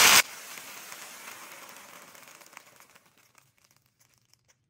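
Water poured into a hot pan of chiles, onion and garlic frying in lard: a loud hiss right at the start that cuts off suddenly, then a soft sizzle with scattered crackles that fades away to near silence.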